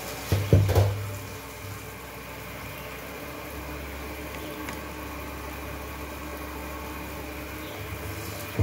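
Wooden chopsticks knocking against a dark-coated pot while stirring boiled macaroni: a few sharp knocks about half a second in, then a steady low hum underneath.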